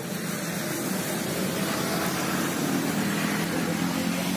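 A motor vehicle engine running steadily, a low hum that grows a little louder toward the end.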